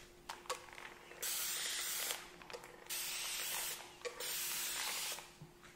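Spray bottle sprayed three times, each a hiss of about a second.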